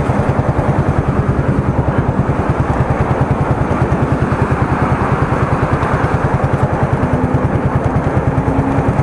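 A motor running steadily with a rapid, even throb of about ten beats a second.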